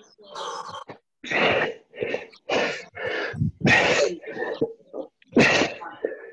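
A person breathing hard from exertion during a dumbbell workout: a quick run of loud, forceful puffs and gasps close to the microphone, about one or two a second.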